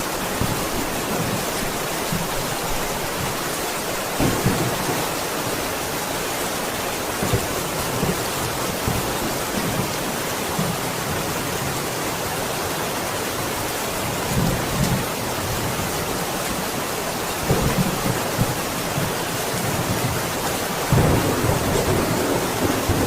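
Steady heavy rain with rolls of thunder: low rumbles swell several times, the loudest starting near the end.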